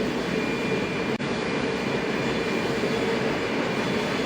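Wet-wipe production-line machinery running: a steady mechanical din with a constant hum and a thin high whine, briefly cutting out just after a second in.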